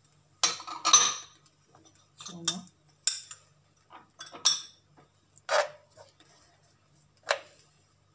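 A metal spoon knocking and scraping against a clay tajine as spices are spooned into the oil: about seven short, separate clinks spread over several seconds.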